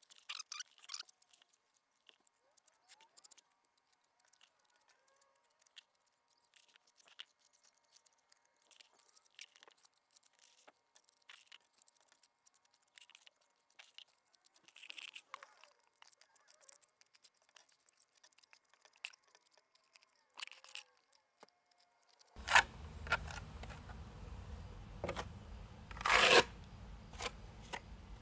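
A small steel trowel scrapes and taps as thick structural repair mortar is packed into cracks in concrete steps: faint, sparse scrapes and clicks. Near the end a low steady rumble comes in, with a few louder knocks over it.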